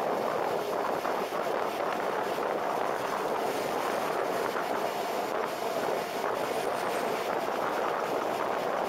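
Steady rush of wind on the microphone of a motorcycle moving at highway speed, with the motorcycle's running noise underneath.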